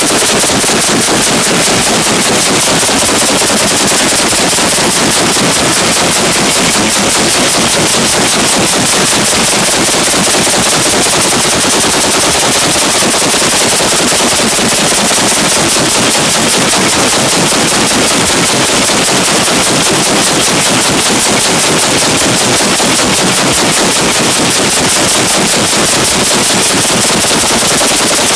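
40 mm L/70 autocannon firing continuously in rapid automatic fire, loud shots following one another without a break.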